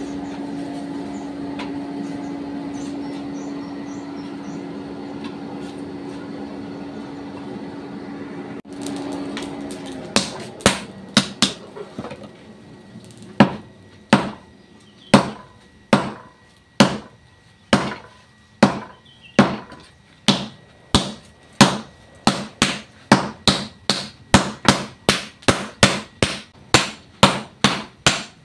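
A steady mechanical hum, the forge's air blower, for about the first nine seconds, then cutting off. Then hammer blows on a red-hot blade held on the anvil: a few uneven strikes, settling into about one blow a second and quickening to about two a second in the last several seconds.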